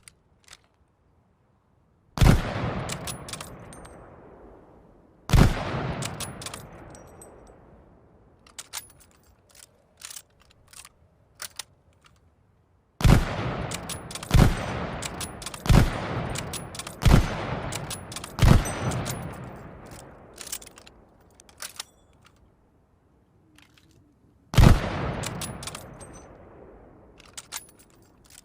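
Lee-Enfield bolt-action .303 rifle fired eight times, each shot followed by a long echoing tail. Two single shots come near the start, then five in quick succession about a second and a half apart midway, then one more near the end, with short metallic clicks of the bolt being worked in the gaps.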